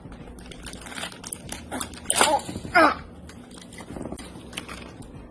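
A toddler's voice making two short high-pitched sounds about two seconds in, with scattered small clicks and rustles around them.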